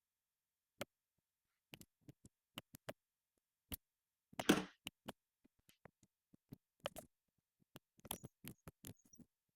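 Scattered faint clicks and knocks of hand work mounting a conduit electrical box, with one louder, brief clatter about four and a half seconds in.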